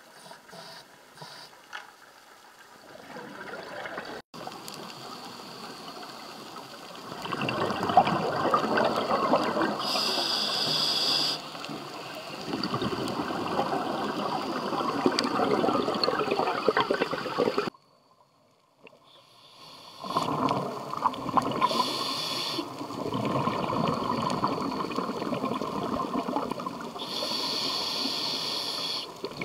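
Underwater sound of a scuba diver's breathing: long stretches of bubbling exhaled air from the regulator, with short hisses between them. It breaks off for about a second a little past the middle.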